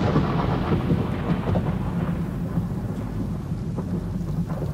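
Thunder rumbling over steady rain, slowly fading.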